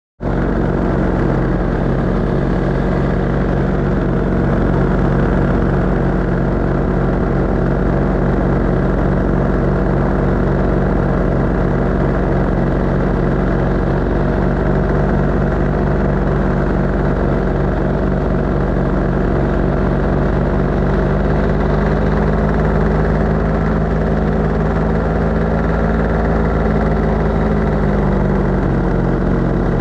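Paramotor engine and propeller running steadily in flight, a loud, even drone. The pitch rises a little about two-thirds of the way through and settles back near the end.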